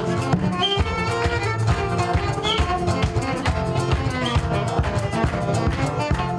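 Acoustic band music with plucked strings and a melody over a steady, busy rhythm.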